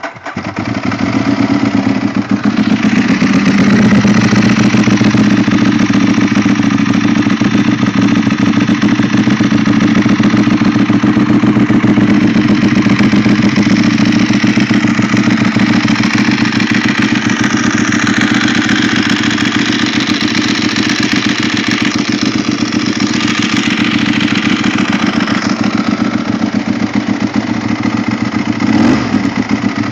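Ducati 1198S's L-twin engine catching and settling into a loud, steady idle through a full Termignoni 70 mm exhaust system, with a brief throttle blip near the end.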